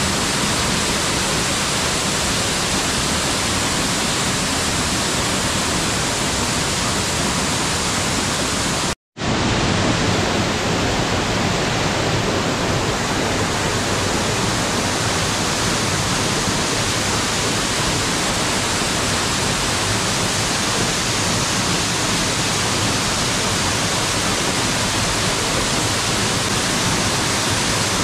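Waterfall pouring down a rock face: a steady, loud rush of falling water. It cuts out for an instant about nine seconds in, then carries on as before.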